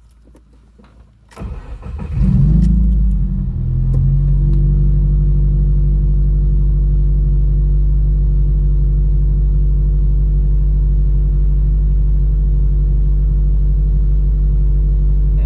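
Subaru WRX's FA20DIT turbocharged flat-four cranking briefly, catching with a rev flare about two seconds in, then settling into a steady idle. The ECU still logs misfire counts on cylinder 3 during this start, even with a new spark plug in that cylinder.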